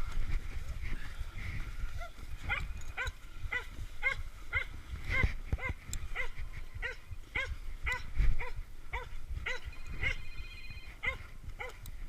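A hog dog barking over and over, about two short barks a second, starting a couple of seconds in.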